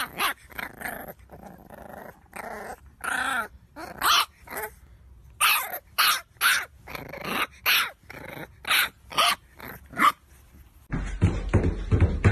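English bulldog puppy barking: a run of short barks and yaps, about two a second, some with a growl. Near the end it gives way to rapid tapping over a steady low hum.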